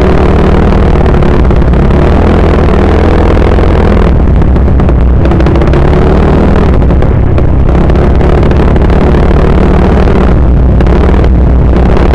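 Yamaha Mio Sporty scooter's single-cylinder four-stroke engine, stock but fitted with a 28 mm Keihin carburettor, running loud while riding. Its pitch wavers and rises and falls with the throttle.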